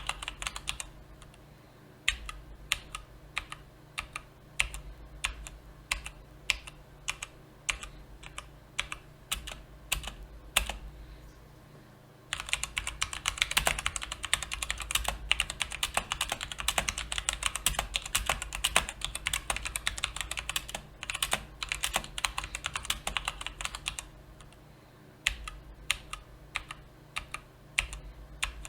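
Mechanical keyboard with brown (tactile) switches being typed on. Separate, scattered keystrokes give way to a stretch of fast continuous typing lasting about twelve seconds, then scattered keystrokes again.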